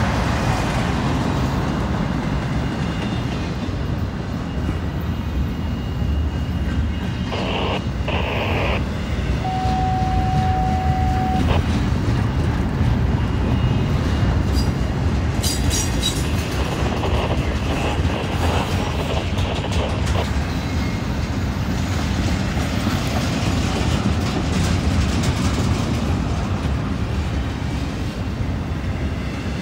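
Double-stack intermodal freight train passing close by, its well cars rolling by in a continuous heavy rumble with wheels clacking over the rail. About ten seconds in, a single steady whine is heard for about two seconds.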